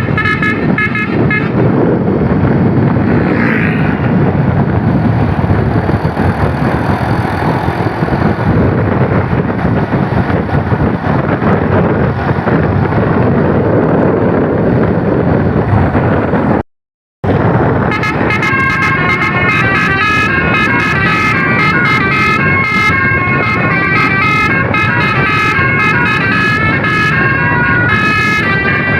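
Bus's basuri telolet multi-tone horn playing a quick melody of changing notes, which breaks off into a long stretch of loud, steady vehicle noise. After a brief cut to silence about two-thirds of the way in, the horn melody comes back and keeps playing.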